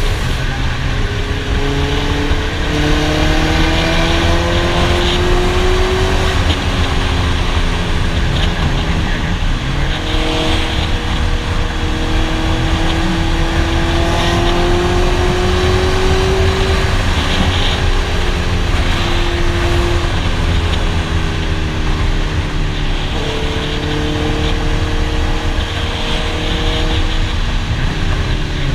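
Honda CB650's inline-four engine pulling the motorcycle at highway speed. Its pitch climbs under throttle and falls back twice, about six and seventeen seconds in. Heavy wind rumble on the microphone runs underneath.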